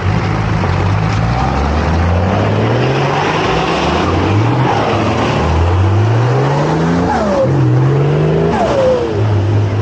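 A 4x4's engine revving hard on a dirt off-road stage. It climbs in pitch and drops back about five times, as if working up through the revs or the gears, with a couple of short high falling squeals in the second half, then settles to a steady lower note near the end.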